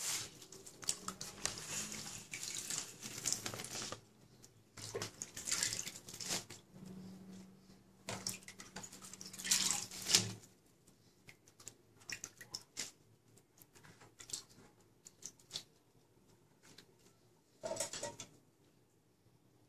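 Water spinach being washed by hand in a basin of water: irregular swishing and splashing, loudest about ten seconds in as handfuls are lifted out into a plastic colander. After that, only scattered drips and light rustles of the wet leaves draining, with one short splash near the end.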